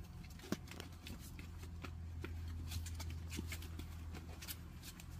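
Month-old puppies' paws and claws scrabbling on cardboard: a string of small, irregular scratches and taps, with one sharper tap about half a second in, over a steady low hum.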